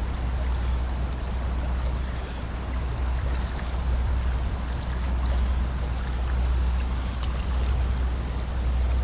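Steady rush of water pouring through a dam spillway, an even noise with a heavy low rumble beneath it.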